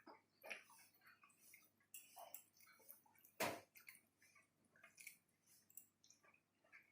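Quiet eating sounds: scattered soft clicks and smacks of chewing and of rice being eaten by hand, with one louder click about three and a half seconds in.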